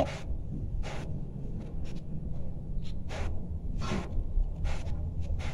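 Handling noise: a few short, soft rustles and light knocks as the opened lamp housing with its metal back plate is turned in the hand, over a low steady rumble.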